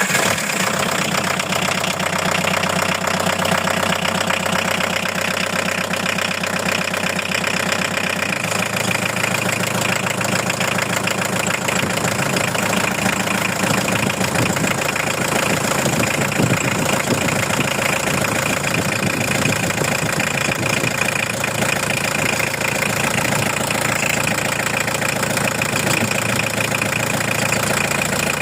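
Van engine idling steadily, heard close up, run with the coolant cap off so that air can bleed out of the freshly refilled cooling system.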